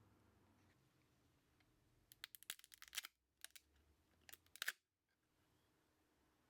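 Paper towel crinkling and rubbing as it wipes mineral oil off a freshly milled circuit board, heard as two short bursts of crackly clicks about two and three and a half seconds in, each cut off abruptly.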